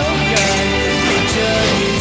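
Theme song of a Chinese TV drama: a Mandarin pop song, a singer over backing music.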